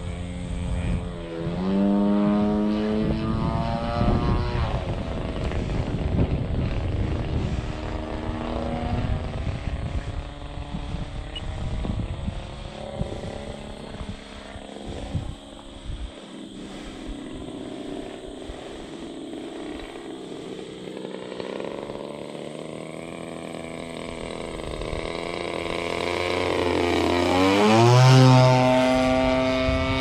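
Timber 110 RC plane's motor and propeller whining overhead, the pitch rising and falling as it manoeuvres, with one loud fly-by near the end where the pitch drops sharply as it passes. Wind gusts buffet the microphone in the first few seconds.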